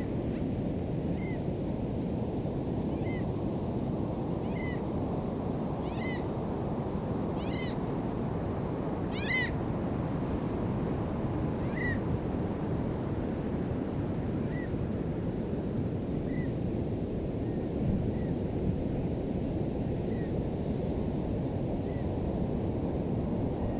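Steady beach surf and wind, with an animal's short high call repeated about every second and a half, growing louder to about nine seconds in and then fading.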